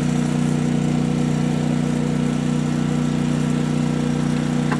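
Portable generator and air compressor running steadily with an even, unchanging engine hum, charging the air cannon's pressure system.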